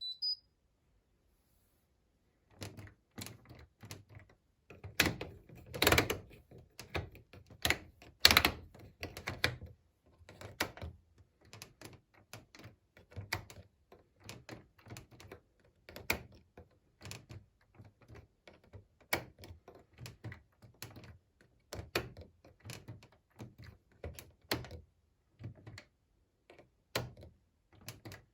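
Irregular clicks and knocks, one or two a second, from working the controls of an Indesit IWME127 washing machine: the program dial and option buttons. The loudest knocks come about six and eight seconds in.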